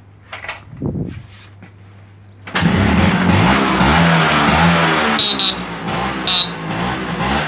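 Vespa T5 scooter's two-stroke single-cylinder engine starting suddenly about two and a half seconds in, then running with the revs rising and falling as the throttle is worked. A low thump comes a second or so before it catches.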